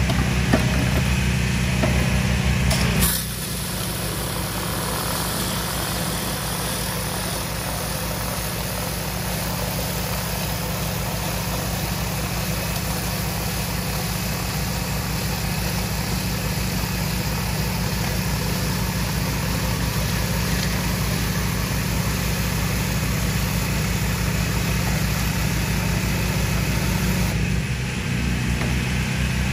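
Pressure washer's gas engine running steadily under an even hiss of high-pressure water spraying. The engine note shifts with a click about three seconds in, and shifts again near the end.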